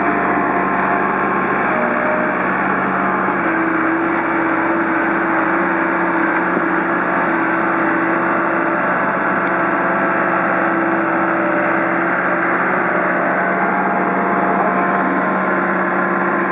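Engine of heavy equipment running steadily with a constant drone, holding the same pitch throughout.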